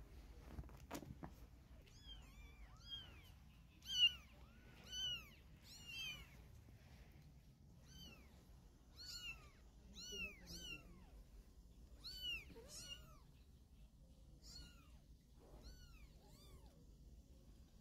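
Young kittens mewing: a run of short, high-pitched, rising-and-falling mews, one or two a second, starting about two seconds in and loudest near four seconds. A single soft click about a second in.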